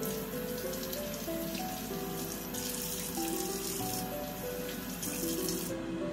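Kitchen tap running into the sink as potatoes are rinsed under it, the flow heavier after a couple of seconds and shut off abruptly just before the end. Background music plays throughout.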